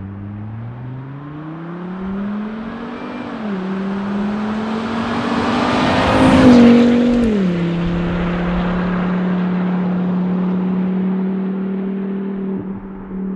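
2007 Volvo XC70's turbocharged five-cylinder with the muffler deleted (resonator, stock downpipe and catalytic converter kept) accelerating past. The exhaust note climbs, dips at a gear change about three and a half seconds in, and climbs again to its loudest as the car passes about six seconds in. It then drops in pitch and holds steady as the car pulls away.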